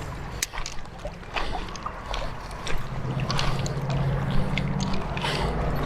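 Creek water sloshing and trickling, with scattered small clicks and knocks from close handling.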